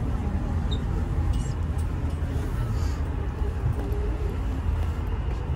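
Steady low rumble inside the moving Roosevelt Island Tram cabin as it rides along its cables.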